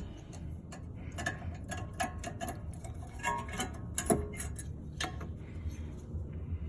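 Scattered light clicks and knocks of brake parts being handled and set down, several a second at times, over a steady low hum.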